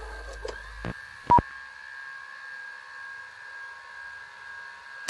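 Electronic logo sting: a low hum and static with a few glitchy clicks, a short sharp beep about a second in, then a steady cluster of high electronic tones over a faint hiss.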